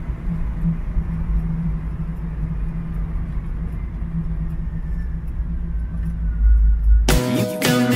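Corvette LT1 350 V8 with long-tube headers and Flowmaster dual exhaust cruising steadily: a low, even exhaust rumble heard from inside the car's cabin. About seven seconds in, rock music with guitar cuts in suddenly.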